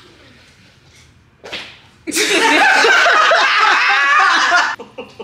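Several women bursting into loud laughter all at once, about two seconds in, which cuts off sharply near the end.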